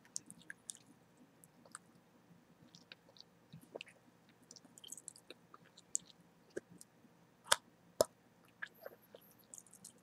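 Close-miked chewing gum: wet mouth clicks and smacks scattered throughout, with two louder, sharper snaps about three quarters of the way in.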